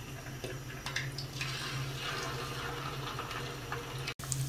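Marinated chicken drumsticks deep-frying in hot oil in a pan: a steady sizzle with scattered pops and crackles over a low hum.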